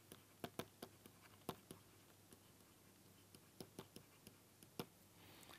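Faint taps and clicks of a pen stylus on a tablet screen while drawing, about a dozen short ticks at irregular intervals.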